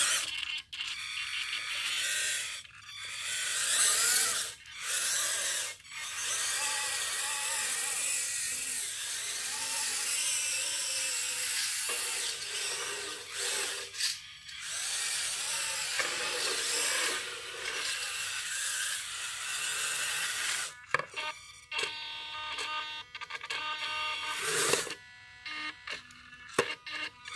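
Small electric drive motors and plastic gearboxes of a radio-controlled, converted Bruder 1/16 CAT compact loader whining as it drives, in repeated bursts that start and stop with short pauses between moves, the pitch wavering with speed.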